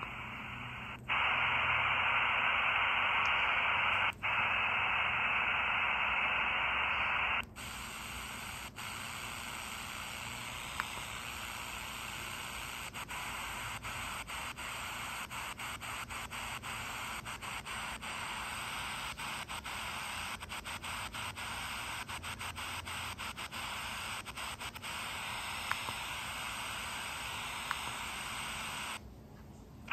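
Static hiss from a 4732 miniature shortwave radio's speaker with no station coming in: poor shortwave reception. The hiss is louder and duller for the first seven seconds, broken by short cut-outs, then turns thinner and is broken by many quick crackles.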